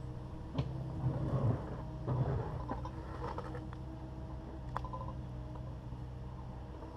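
Takeuchi TB260 excavator's diesel engine running steadily, with knocks and rough scraping as its bucket works on broken concrete, the heaviest about one to two and a half seconds in, and a single sharp knock near the end.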